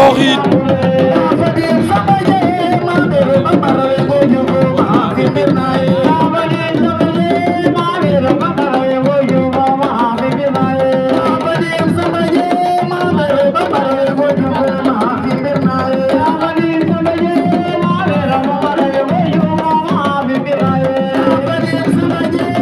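Hand drums playing a steady, fast rhythm, with voices singing over them.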